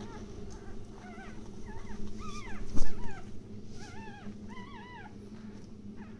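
Newborn Maltese puppies squeaking and whimpering: short, high-pitched calls that rise and fall, often two or three at once, over a steady low hum. A single sharp knock about three seconds in is the loudest sound.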